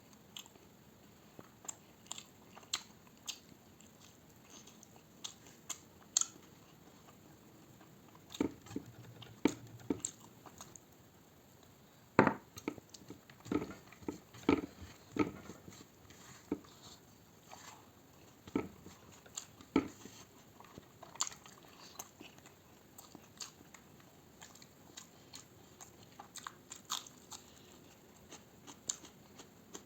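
Close-up eating sounds: irregular crunching bites, chewing and wet mouth clicks, with a run of louder, quicker bites in the middle.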